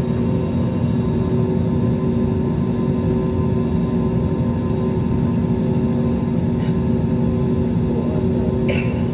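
Airliner's jet engines running at taxi power, heard inside the cabin: a steady rumble with several steady whining tones. A brief higher sound is heard near the end.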